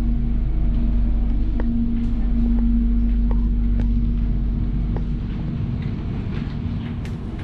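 Electric train heard from inside the carriage: a heavy low rumble with a steady hum. It fades over the last few seconds, where scattered light clicks and taps come through.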